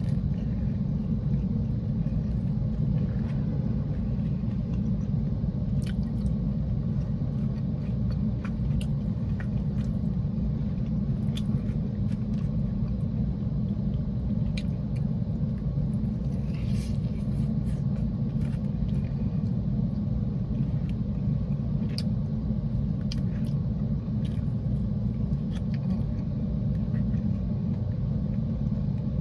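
Steady low rumble of a parked car idling, heard from inside the cabin, with scattered small clicks of someone eating.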